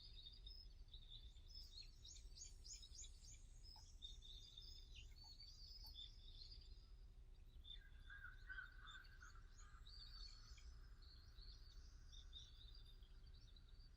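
Wild birds chirping and singing faintly, many short high notes overlapping throughout, with a lower, quicker run of calls about eight seconds in, over a steady low background rumble.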